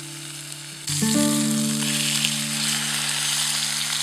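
Ribeye steak sizzling in a frying pan over a campfire, the sizzle getting louder about a second in. Under it, background music with long held notes.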